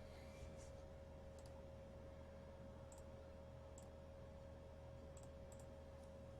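Near silence: a steady electrical hum, with about six faint, short clicks scattered through it.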